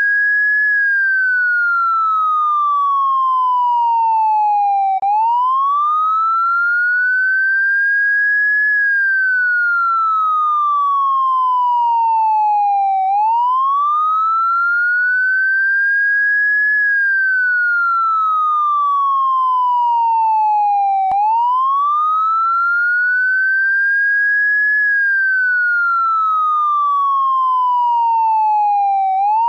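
Electronic police siren giving a clean wailing tone. It sweeps up quickly from low to high, eases onto the top, then slides slowly and evenly back down, repeating about every eight seconds.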